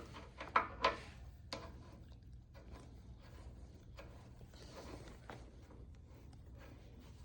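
Handling of a high-pressure hose being fitted onto a gas pressure washer's pump outlet: a few sharp clicks between about half a second and a second and a half in, then faint, irregular ticking and rattling of the fitting.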